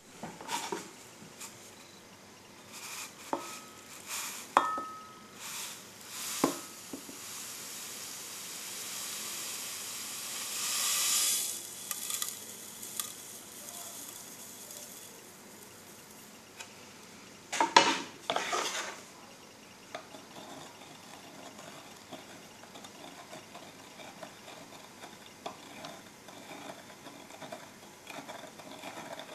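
Caustic soda being added to water in a glass measuring jug and stirred with a utensil. Sharp clinks and knocks against the glass come first, then a hiss that rises for a few seconds in the middle, a loud cluster of clinks a little past halfway, and quieter steady stirring to the end.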